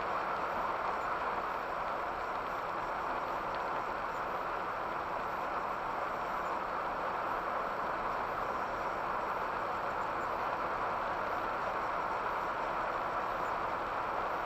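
Steady road noise from inside a car cabin while driving, an even hiss of tyres on a wet road, with no wiper strokes standing out.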